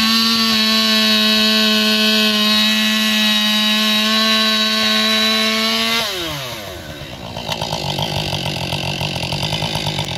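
Two-stroke chainsaw engine held at wide-open throttle with no load, running steady at the top of its revs against the rev limit. About six seconds in the throttle is released and the engine winds down over about a second to a pulsing idle.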